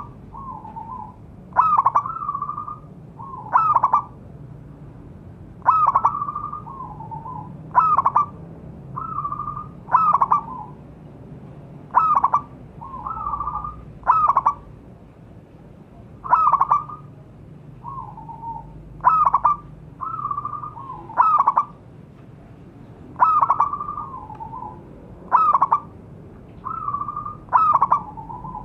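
Zebra dove (perkutut) cooing. The same short phrase repeats about every two seconds, each a quick rising and falling note followed by softer, lower trailing notes.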